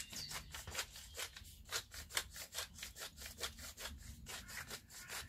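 Pepper mill being twisted by hand, grinding peppercorns in a quick, even rasp of about five grinds a second.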